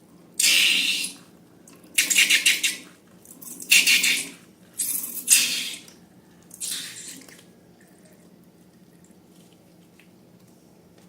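Wet, splattering bursts of liquid slime ingredients being emptied out, five of them about a second long, then only faint room sound.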